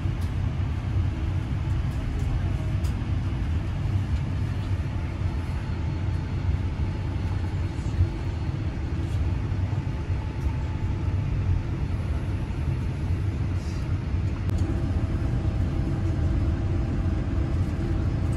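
Steady low rumble inside the cabin of a Boeing 787-9 taxiing, from its engines at low power and the rolling of the wheels, with a faint steady whine joining in near the end.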